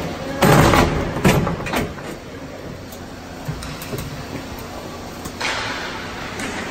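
Ice hockey play at rink level: skates hissing and scraping on the ice in bursts, with a few sharp knocks of sticks, puck or boards about a second in.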